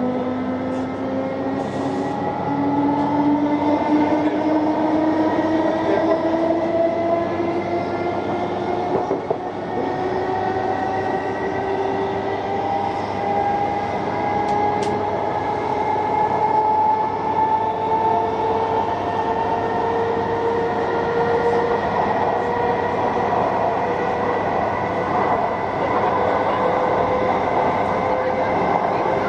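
Inside a ScotRail electric multiple-unit train: the traction motors' whine climbs slowly and steadily in pitch as the train accelerates, over a steady rumble of wheels on track.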